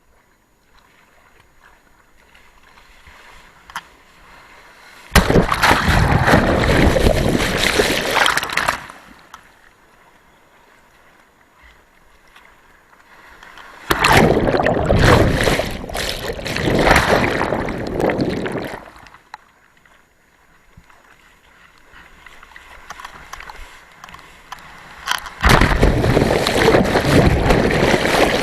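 Rough surf and rushing water, loud in three stretches of a few seconds each that come on suddenly, with a quieter wash of sea between them.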